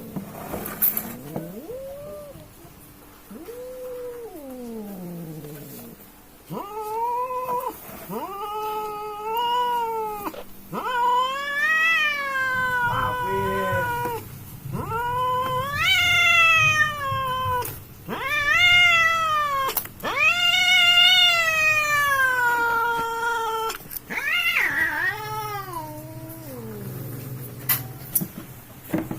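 Two domestic cats caterwauling at each other in a fight: a string of long, wavering yowls that rise and fall in pitch, one after another, louder in the middle stretch. This is the threat yowling cats make in a territorial standoff.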